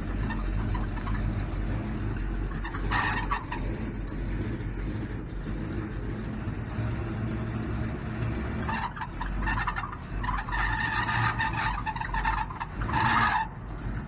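Car engine idling with a steady low rumble during slow, hard-lock manoeuvring. A short high squeal comes about three seconds in, and a longer run of squealing follows near the end.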